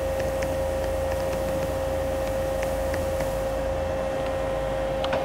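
Doosan Lynx 220LMSA CNC turning center running at rest: a steady whine over a low hum, with a few faint ticks.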